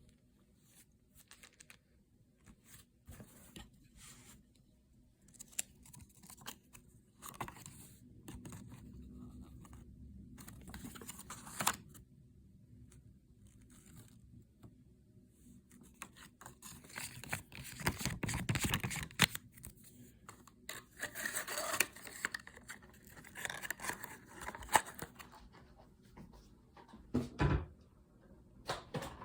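Packaging being opened by hand: intermittent tearing, scraping and rustling with scattered clicks, busiest in the middle stretch, and a couple of sharper knocks near the end.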